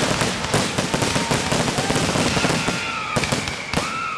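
Fireworks display: a dense run of sharp shell bursts and bangs, one after another, with whistling effects gliding up and down in pitch in the second half.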